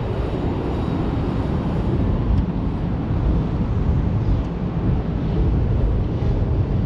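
Trolley streetcar running along street track between stops: a steady low rumble of wheels and running gear.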